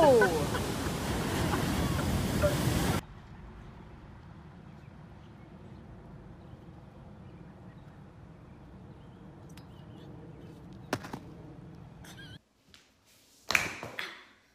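Ocean surf breaking on a beach, with wind on the microphone, for about the first three seconds before it cuts off suddenly. A faint outdoor background with a few light knocks follows, and near the end there is one short loud sound.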